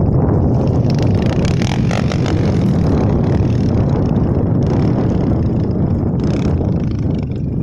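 Suzuki DR125 dirt bike's single-cylinder four-stroke engine running as it rides away over loose gravel, mixed with a steady low rumble of wind on the microphone.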